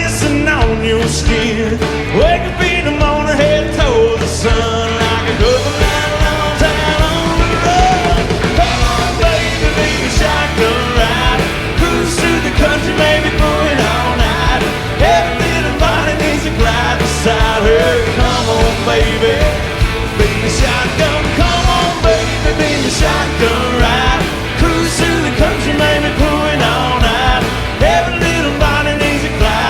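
Live country-rock band playing an instrumental break: a lead line with bending notes over bass and a steady drum beat.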